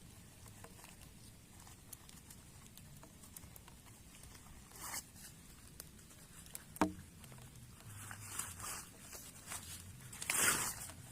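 Scattered handling noises: faint rustles and small clicks, a sharp knock about seven seconds in, and a short rasping sweep near the end.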